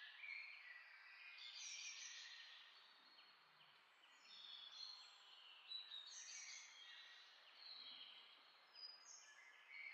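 Near silence with faint, high bird chirps over a soft background hiss.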